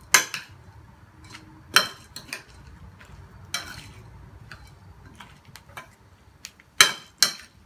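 Metal spoon stirring and tossing chaat in a serving bowl, clinking and scraping against the bowl about a dozen times at uneven intervals, with two louder knocks near the end.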